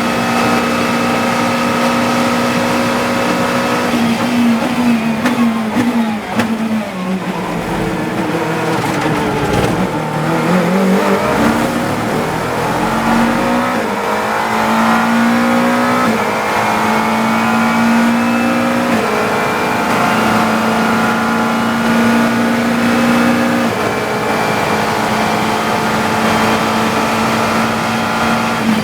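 GT3 race car engine heard onboard at high revs. About four seconds in it drops through a quick run of downshifts under braking to low revs, then accelerates hard again through several upshifts.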